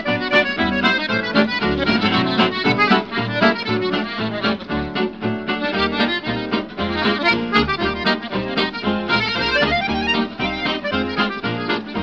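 Instrumental background music led by accordion, with a steady beat and plucked accompaniment.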